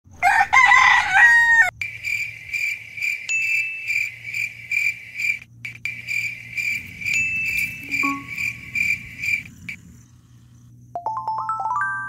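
A rooster crows once, loudly, at the start. Then comes a steady high chirping, about two pulses a second, which stops near the tenth second. Near the end, a quick rising run of chime-like notes sounds.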